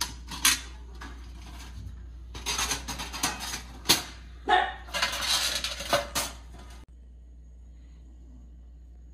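Folding sheet-metal Coleman camp oven being set up and opened by hand: its panels and door clank, rattle and scrape in a few bursts, with a sharp clank about four seconds in. The handling stops about seven seconds in.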